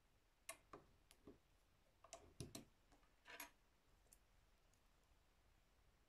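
Faint, scattered clicks and light taps of small metal tools, scissors and tweezers, being picked up and handled on a sewing machine's table, about a dozen over the first four seconds.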